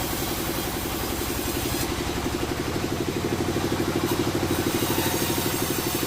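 An engine running steadily at idle with an even, rapid pulsing beat, getting a little louder partway through.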